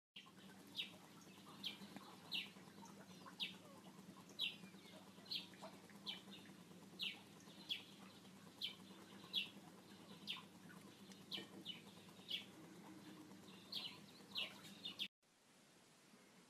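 Faint, short high chirps repeating roughly once a second over a low steady hum, stopping abruptly near the end.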